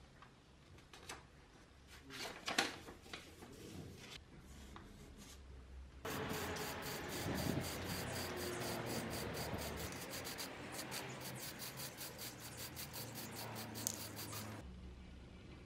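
Paper rustling and rubbing with a few clicks. About six seconds in, an aerosol spray-paint can starts hissing loudly and flutters in rapid pulses for about eight seconds as black paint is sprayed, then cuts off.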